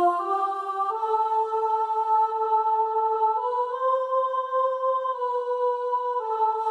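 A single soprano voice carrying a slow hymn melody, long steady held notes that step up and down between a few pitches.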